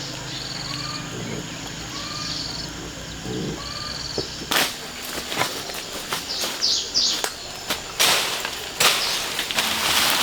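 Birds calling, a short call repeating about once a second, then from about halfway a run of sharp cracks and knocks, loudest near the end.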